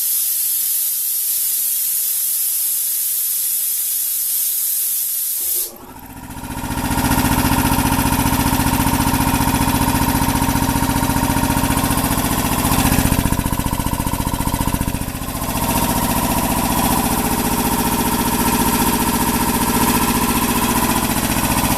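A steady hiss. About six seconds in, a Meiji GH-5A 5-horsepower air compressor starts and runs with a steady pulsing beat, then stops near the end with a brief pop. It runs evenly, in good order after servicing.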